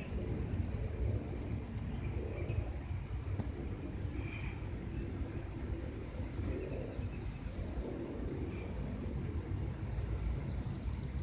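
Outdoor evening garden ambience: a steady low rumble of wind on the phone's microphone under continuous high, rapid chirping from small creatures. The opening flowers themselves make no sound.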